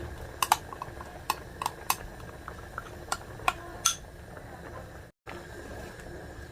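A metal utensil clinking against dishes: a dozen or so sharp, ringing clinks in the first four seconds, then only a faint steady hum.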